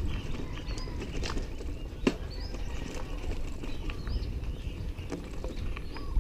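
Bicycle rolling over a rough gravel and dirt trail, with a low tyre rumble and irregular sharp knocks and rattles from the bike on the bumps; the loudest knock comes about two seconds in. Birds chirp faintly.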